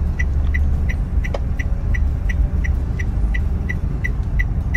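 Inside a small car moving slowly: low engine and road rumble, with the turn-signal indicator ticking evenly about three times a second.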